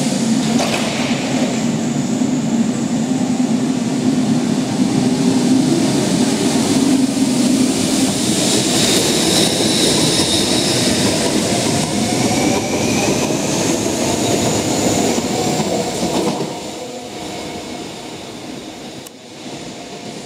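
Rome Metro MB100 electric train pulling out of the station: wheel and rail noise with rising electric motor whines as it gathers speed. The sound drops away suddenly about three quarters of the way through.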